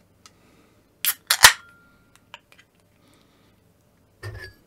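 A beer can being opened by its pull tab: a click, then a sharp crack with a short hiss of escaping gas, about a second in.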